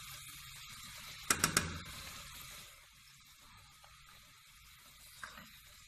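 Chicken and onion sizzling in ghee and butter in an aluminium pot, a steady frying hiss. About a second and a half in there are three quick sharp knocks, after which the sizzle goes quieter.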